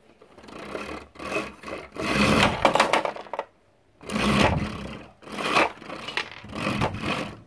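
Plastic wheels of a toy jeep rolling and scraping across a wooden tabletop in several bursts of a second or so, the loudest about two seconds in.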